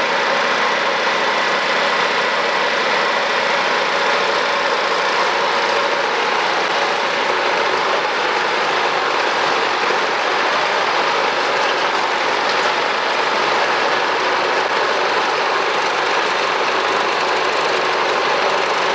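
DT-75 crawler bulldozer's diesel engine running steadily and loudly.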